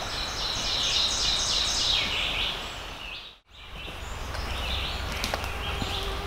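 Birds calling over steady outdoor background noise with a low rumble. The sound drops out briefly about three and a half seconds in, then fainter chirps continue.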